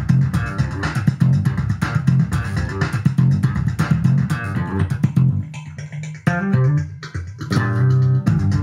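Electric bass, a Music Man StingRay, played slap-style: a busy run of percussive slapped and popped notes, which thins out about five seconds in to a few longer held low notes before picking up again near the end.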